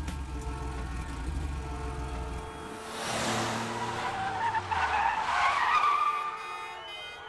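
Car sound effects: a low engine rumble, then tires screeching from about three seconds in, loudest near the end.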